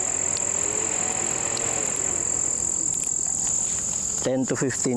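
Crickets chirping in a steady, unbroken high trill over a soft background hiss. A man starts speaking near the end.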